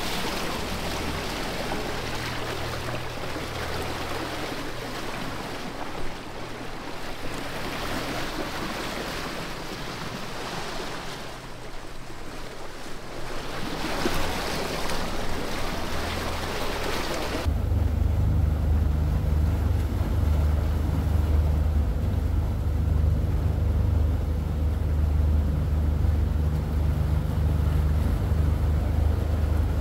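Water rushing past the hull and wind, from a disabled fishing boat being towed with its own engine silent. About two-thirds of the way through the sound changes abruptly to a heavy, steady low rumble.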